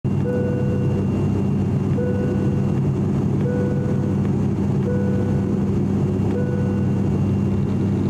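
Cabin drone of an ATR 42-600 turboprop in flight, heard beside the propeller: a steady low hum of the propellers and engines over a rushing noise. A short high tone repeats about every second and a half.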